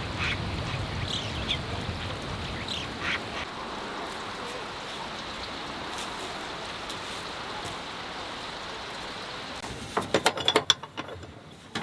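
Steady outdoor hiss with a few short, high bird calls in the first few seconds. About ten seconds in, a quick run of loud, sharp clicks and knocks.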